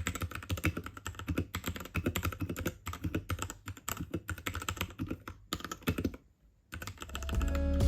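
Typing on a Royal Kludge RK68 mechanical keyboard with red linear switches: rapid, uneven key clacks, with a brief pause about six seconds in. Music fades in near the end.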